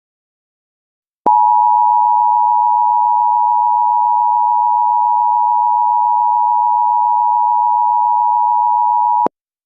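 Emergency Alert System attention signal: two steady tones sounding together, just under 1 kHz (the 853 and 960 Hz pair), starting about a second in and cutting off abruptly about eight seconds later.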